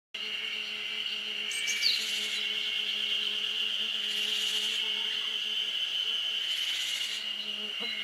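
Woodland ambience dominated by a steady, high-pitched insect chorus, with hissy higher bursts every two to three seconds and a short falling bird note about two seconds in.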